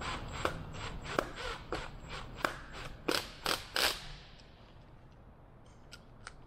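Metal hinge hardware on a wooden rudder pedal being worked by hand: a quick, irregular run of sharp metallic clicks and short scrapes, the last three louder, then two faint clicks near the end.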